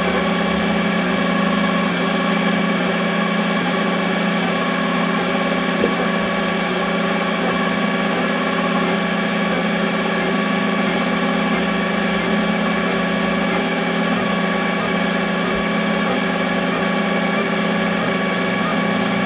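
XYZ da Vinci Mini W+ 3D printer running mid-print: a steady machine hum made of several held tones, with one brief tick about six seconds in.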